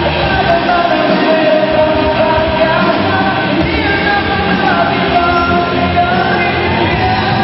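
Live rock band playing amplified, with electric guitars and keyboard, while a lead singer sings long held notes that slide in pitch into a microphone.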